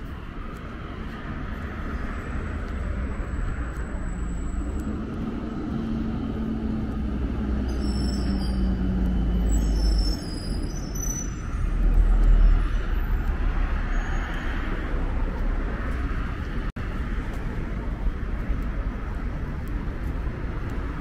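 Street traffic: a minibus engine running close by as it drives up to the stop, over a steady road rumble. The rumble swells to its loudest about twelve seconds in, with a few brief high squeaks just before.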